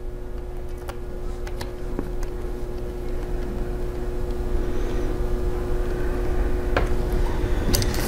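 A steady low machine hum with a constant droning tone, slowly growing a little louder, with a few light clicks and taps of small parts and tools being handled at the laptop.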